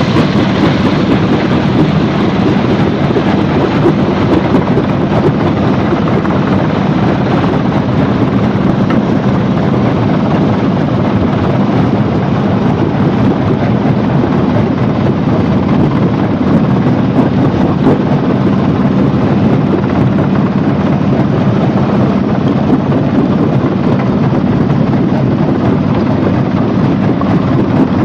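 Heavy machinery running with a steady, loud rumble and no breaks.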